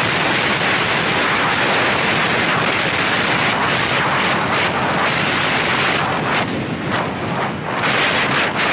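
Wind buffeting the microphone of a helmet camera on a fast ski descent: a loud, steady rush of noise that eases and flutters briefly about six seconds in, then returns.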